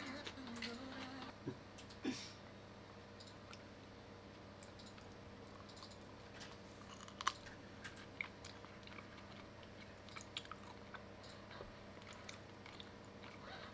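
Faint close-up chewing of food, with scattered small clicks of chopsticks against the plate; one sharper click about seven seconds in.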